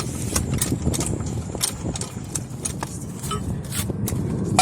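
Floor jack being worked to lift the car: a string of irregular metal clicks and knocks over a steady low rumble.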